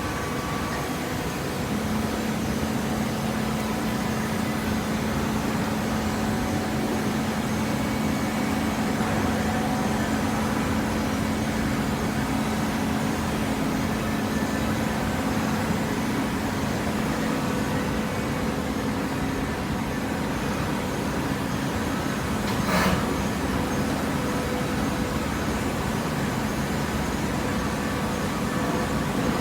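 Hydraulic paper and cardboard baler running: a steady machine drone with a steady hum, and a single sharp knock about 23 seconds in.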